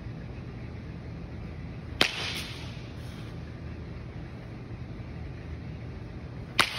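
Two sharp cracks of a bat hitting a ball, about two seconds in and again near the end, each ringing briefly in the echoing hall, over a steady low background hum.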